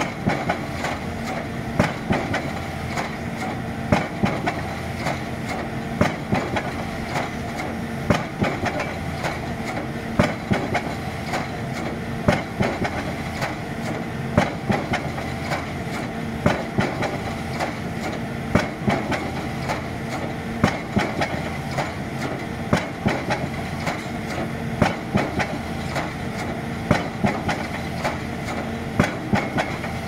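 A 9-ton hydraulic pile-driving hammer striking the top of a pile in repeated single blows, about one a second. The steady running of the piling rig's engine carries on underneath.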